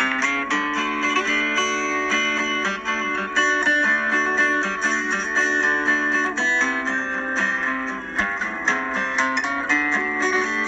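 Background music played on guitar, notes picked in quick succession over held chords.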